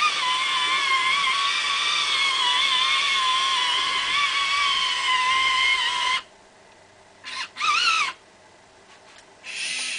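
Small electric gear motors of a Revell Vexplorer robot whining as it moves: one long steady whine that cuts off suddenly about six seconds in, then a few short bursts, one rising in pitch, and another burst near the end.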